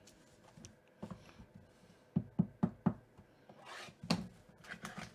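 Fingers knocking and tapping on a sealed, shrink-wrapped cardboard trading-card box (2019 Topps Tier One hobby box), with four quick knocks a little over two seconds in, then a brief rustle and a few light clicks of handling.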